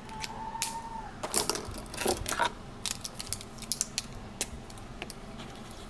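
Metal-barrel fountain pens being handled: a quick irregular run of light clicks and small metallic clatters, most of them in the first four seconds.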